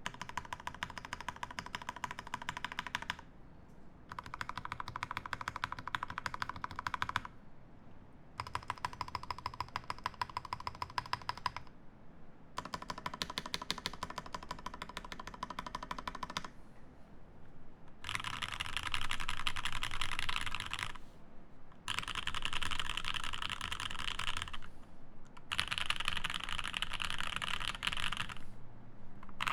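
Fast typing on an acrylic-plate Alice-layout mechanical keyboard with lubed Alpaca V2 linear switches and GMK keycaps, in bursts of a few seconds separated by short pauses. The bursts from about 18 s in are brighter and more tightly packed.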